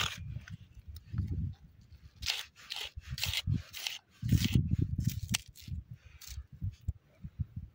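Knife slicing through a raw onion held in the hand: a run of short, crisp crunches at irregular intervals, one per cut, with low rumbling bursts underneath.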